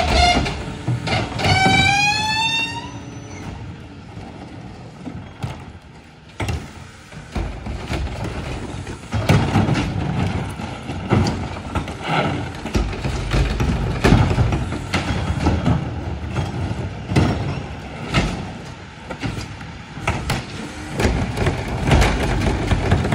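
Rear-loader garbage truck working at the curb: a hydraulic whine rises in pitch in the first few seconds as the cart tipper cycles. After that come repeated clunks and bangs of plastic carts being tipped and handled, over the truck's engine running.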